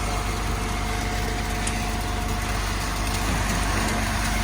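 Concrete truck's diesel engine running steadily: a low rumble with a steady whine over it.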